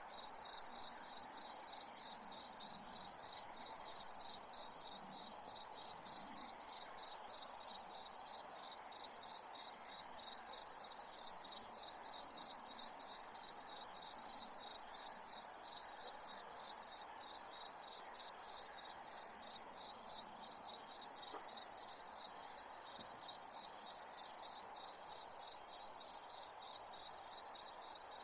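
Crickets chirping at night: a high, even-pitched chirp repeating in a steady rhythm, about three to four chirps a second, over a faint background hiss.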